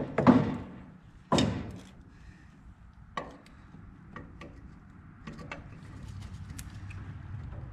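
Metal knocks and clicks of the IH 444 tractor's rebuilt carburetor being handled and fitted onto the engine by hand: a few loud knocks in the first two seconds, then scattered light clicks.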